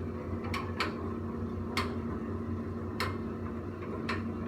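Five sharp, irregular clicks over a steady low hum.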